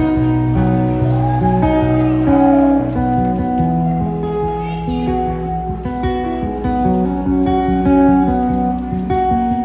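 Solo acoustic guitar playing the instrumental intro of a song, a steady strummed and picked chord pattern.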